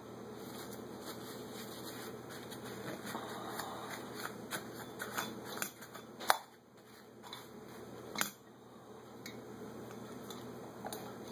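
Rustling and small clicks of hands handling a disassembled Holley carburetor on a plastic sheet and rubbing at it with a rag, with two sharper clicks a couple of seconds apart midway. A steady hum runs underneath.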